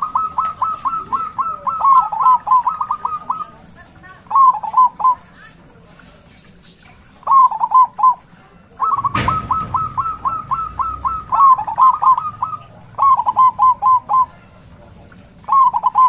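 Zebra dove singing its staccato cooing song: quick runs of short coo notes in several phrases separated by pauses. A single sharp knock sounds about nine seconds in.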